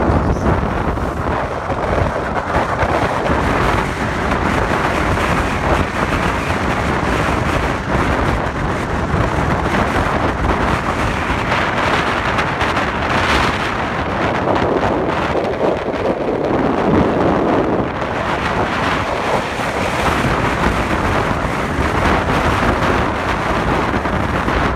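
Steady rush of wind over the microphone of a moving vehicle, mixed with road noise, with no separate events standing out.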